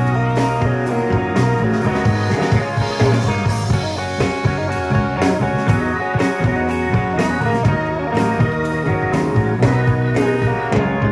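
Live rock band playing, with electric and acoustic guitars, keyboard and a drum kit keeping a steady beat of regular drum hits.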